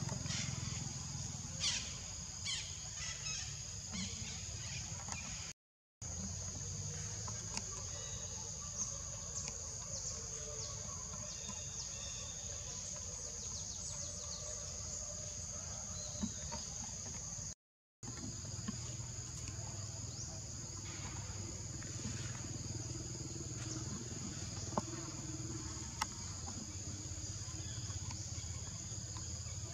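Steady high-pitched chorus of insects in the forest, with a low rumble beneath and a few faint clicks and snaps; the sound cuts out completely twice for a moment.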